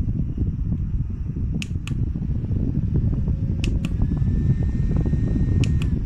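JISULIFE mini USB rechargeable desk fan running, its airflow blowing straight onto the microphone as a loud, steady low rushing. A few sharp clicks come in pairs over it.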